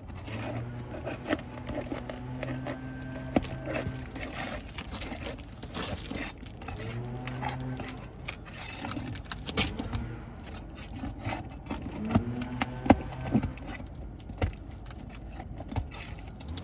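Metal roofing tools clicking, clinking and scraping against asphalt shingles and nails as the nails are worked loose and pulled, in irregular sharp strokes. A low steady hum starts and stops several times underneath.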